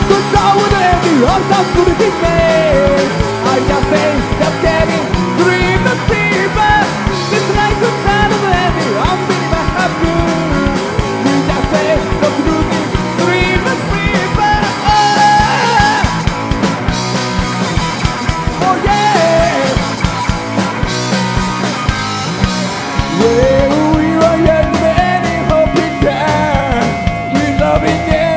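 Live rock band playing loudly: distorted electric guitar, electric bass and drums, with a male lead singer shouting and singing into the microphone.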